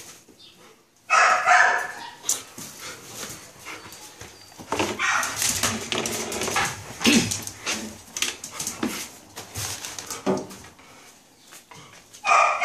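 Australian shepherd barking close to the microphone, loudest about a second in and again at the very end, with rustling and knocks of movement in between.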